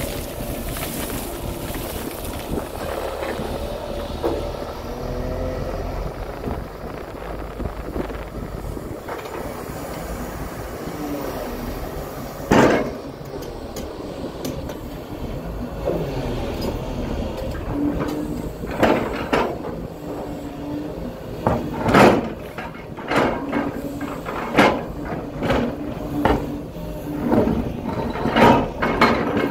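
JCB tracked excavator's engine running steadily while it digs. From about halfway through, the steel bucket clanks and scrapes repeatedly against stones and rock in the pit.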